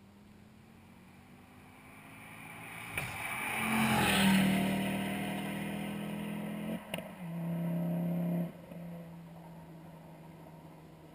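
Ford Focus ST with a 3-inch decat exhaust accelerating past, its engine note building to loudest about four seconds in. The note dips briefly near seven seconds in, pulls again, then drops off suddenly as the throttle lifts, and fades away.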